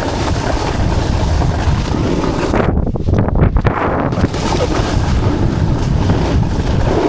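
Wind buffeting a body-worn camera's microphone while a snowboard slides and scrapes over snow at speed. The high scraping hiss drops out for about a second and a half around three seconds in, then comes back.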